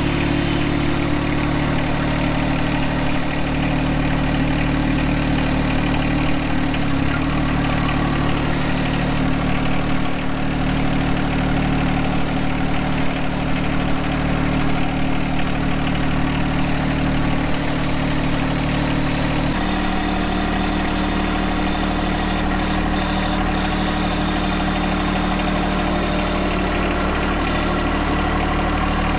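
John Deere 1025R compact tractor's three-cylinder diesel engine running steadily while the tractor pushes dirt with its front blade. About two-thirds of the way through, the engine note shifts to a different pitch.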